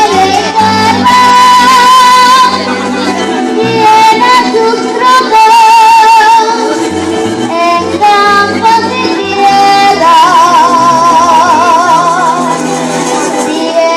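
Venezuelan llanero song in entreverado rhythm performed live: a girl's voice holds long notes with a wide vibrato over the band, with a bass line stepping from note to note beneath.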